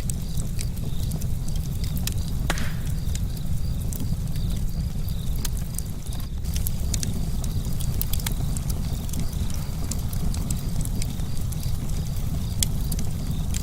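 Campfire burning: a steady low rumble of the fire with frequent sharp crackles and pops from the burning wood.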